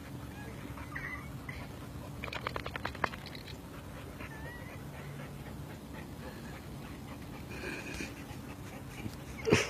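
Boxer dogs digging in sand, faint scraping of paws, with a quick run of scratching strokes about two seconds in. A sharp thump near the end is the loudest sound.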